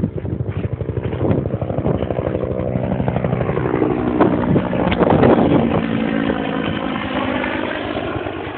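Military helicopter passing overhead, its rotor chopping rapidly; it builds to its loudest about five seconds in, then eases off.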